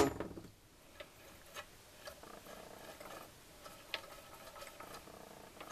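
Gilera Sport 150 gearbox shaft turned by hand in neutral, the gears in the open crankcase spinning freely with a faint whir and a few light ticks.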